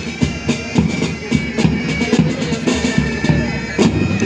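Marching band music: drums keep a steady beat, about three strokes a second, under held, reedy piping tones.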